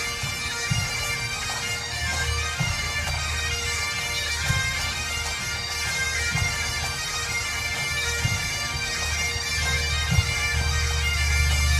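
Massed Highland bagpipes playing a lively dance tune over their steady drone, with a low drum beat underneath.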